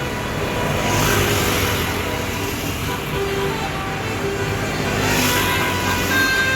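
Road traffic at a roadside: vehicle engines and tyres, swelling as vehicles pass about a second in and again about five seconds in, with a few short faint tones; a steady high tone begins near the end.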